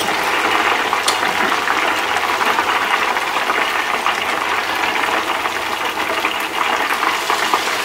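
Hot oil in a steel pot sizzling and crackling steadily as thin ghevar batter is trickled in from a ladle and fries into a froth.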